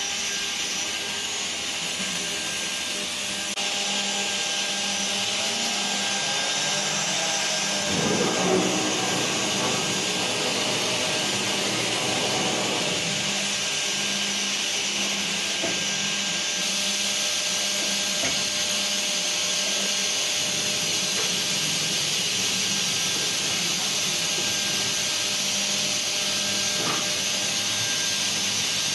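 Two-head CNC wood router running: a steady high whine and hiss from its spindles, with a rougher, louder stretch from about eight to thirteen seconds in.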